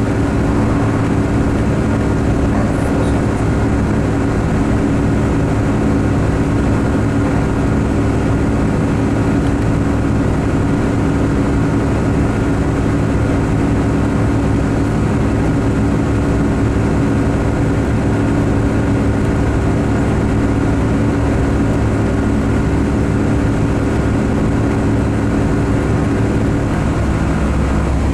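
A 2016 MCI D4500CT coach, heard from inside while it drives, with its Cummins Westport ISX12 G natural-gas engine running steadily under road noise. The engine note changes near the end.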